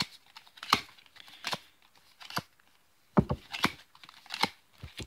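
Yu-Gi-Oh! foil trading cards being flicked and dealt by hand one after another: a string of sharp card slaps and snaps at an uneven pace, with a light papery rustle between them.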